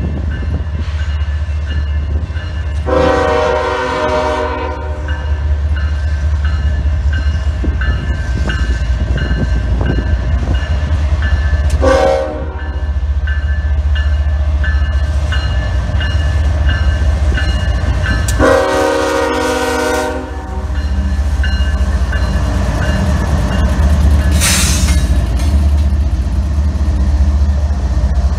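Freight train's diesel locomotives approaching and passing with a steady low engine rumble, the air horn sounding three times: a long blast about three seconds in, a short one around twelve seconds, and another long one around nineteen seconds. A bell dings steadily in the background, and a brief hiss comes near the end as the locomotives go by.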